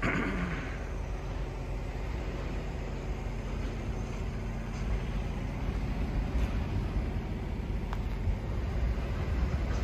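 Low, steady engine rumble, with a brief sound falling in pitch right at the start.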